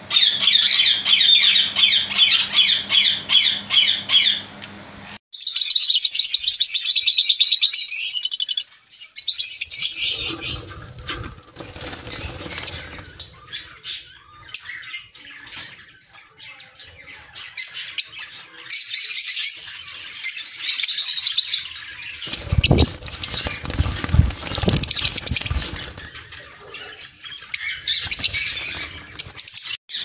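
Caged lovebirds chirping and squawking in rapid, overlapping high calls, with the flock sound changing abruptly several times. For a few seconds past the middle, a low rumbling noise sits under the calls.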